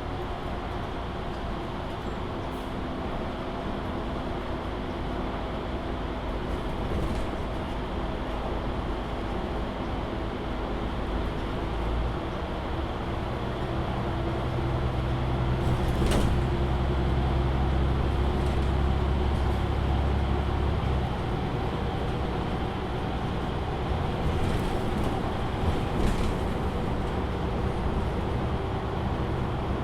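Inside a MAN Lion's City NL293 city bus while it drives: the diesel engine and drivetrain run steadily with tyre and road noise. About twelve seconds in, the engine note deepens and grows louder as the bus pulls harder, then eases off after about twenty seconds. There are a few sharp knocks and rattles, one at about sixteen seconds and another near the end.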